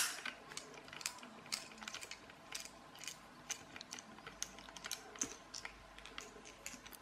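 Light, irregular clicks and ticks from a precision screwdriver turning small screws out of a plastic toy car's body, with one sharper click right at the start.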